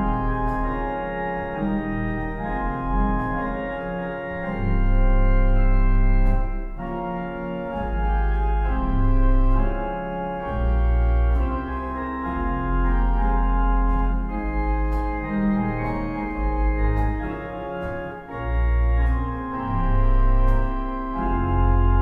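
Pipe organ playing slow sustained chords, with deep pedal bass notes swelling in and out beneath them.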